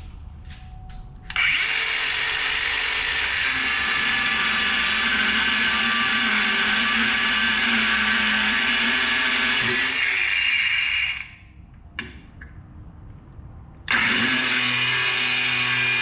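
Cordless angle grinder with a cutoff wheel cutting through a link of heavy steel chain. It starts about a second in, runs steadily under load, then spins down. After a short pause with one click, it starts again for a second cut.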